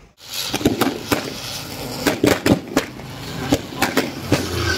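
Ground spinner firework (chakri) hissing and crackling, with irregular sharp pops. It starts abruptly just after the opening instant.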